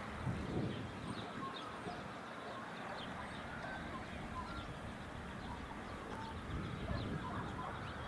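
Birds chirping in short scattered calls, over wind gusting on the microphone.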